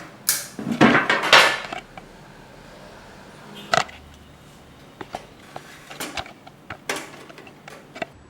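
Metal parts of a two-burner barbecue grill clattering and knocking as it is unboxed and handled: a burst of clatter in the first two seconds, a single sharp knock near the middle, then a run of lighter clicks and taps.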